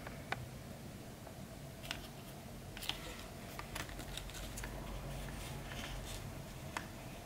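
Folded paper origami cranes handled by hand: light irregular taps and soft crinkles of the paper, over a low steady hum.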